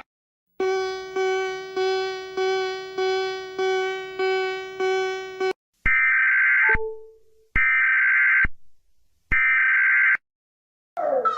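Emergency alert tones: a pitched beep repeated about eight times at an even pace, each beep fading. After a short gap come three long, harsh buzzer tones with short silences between them, and falling siren-like sweeps begin just before the end.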